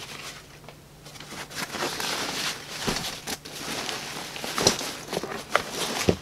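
Fabric rustling and handling noise as a camouflage backpack is turned around by hand, with several light knocks and clicks scattered through it, the sharpest near the end.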